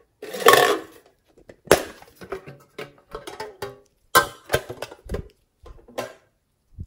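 Thin sheet-metal tin box with a hinged lid being handled and opened. A scraping rattle comes first, then a string of sharp metallic clicks and taps, each with a brief ringing tone.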